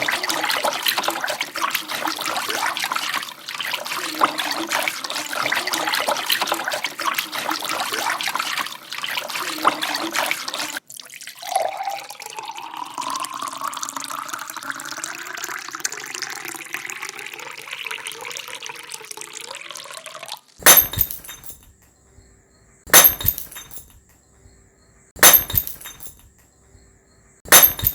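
Water running for about ten seconds, then liquid pouring with a tone that rises steadily. Near the end, four sharp glass clinks about two seconds apart, each ringing briefly.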